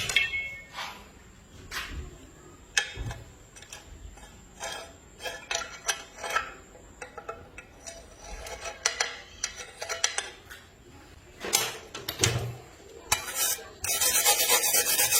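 Metal parts clinking and clanking as they are handled, in scattered knocks. Near the end a loud, harsh rasping sound with a fast even pulse starts suddenly and keeps going.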